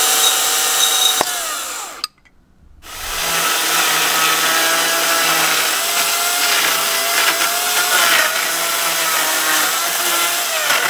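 Makita UC3541A corded electric chainsaw running with a steady whine, with one sharp click about a second in. It stops about two seconds in, starts again a moment later, and runs while cutting into wooden pallet boards, its pitch wavering slightly under the load.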